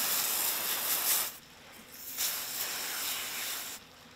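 Garden hose spray nozzle blasting water onto a barracuda fillet to rinse off loose scales, in two hissing bursts: the first stops about a second in, the second starts about two seconds in and stops shortly before the end.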